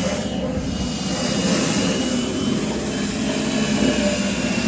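A power tool's motor running steadily, with a thin high whine over the noise.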